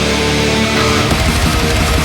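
Brutal thrash metal recording: distorted electric guitars and drums playing at full tilt, with a fast, pounding low rhythm setting in about a second in.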